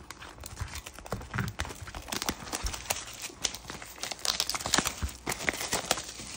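Clear plastic shrink wrap being torn open and peeled off a sealed trading-card hobby box, crinkling in irregular crackles that are busiest about four to five seconds in.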